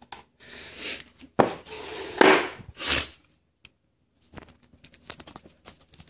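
A person with a cold sniffling, sharp sniffs about a second in and again near three seconds, among knocks and rustle from handling, then a run of light clicks near the end.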